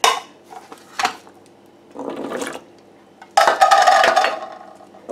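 Canned chickpeas being tipped into a plastic food processor bowl: separate knocks and clatter of chickpeas and the can against the bowl. The loudest part is a rattle lasting about a second, starting about three and a half seconds in.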